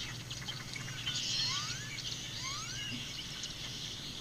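Outdoor ambience with birds chirping high up, and two short rising calls a little past the middle, over a low steady hum.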